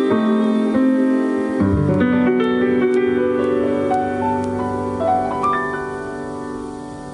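Solo piano playing a song's outro. A few chords change, then a final chord is laid out note by note, climbing upward, and left to ring, fading near the end.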